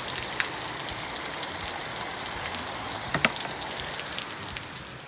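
Steady rain falling, a constant hiss with scattered sharper drips; it drops in level near the end.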